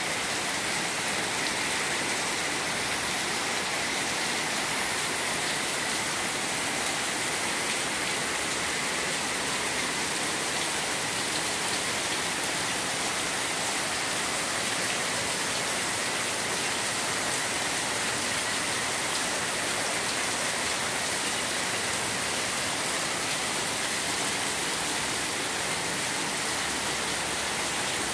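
Heavy rain falling steadily onto a water-covered paved yard.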